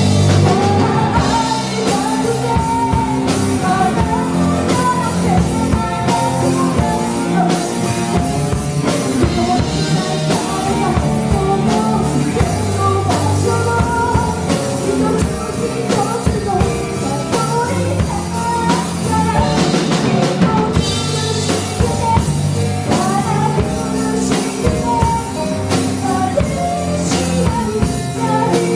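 Live band playing a sad song: a woman singing lead into a microphone over keyboard, electric guitar and a drum kit.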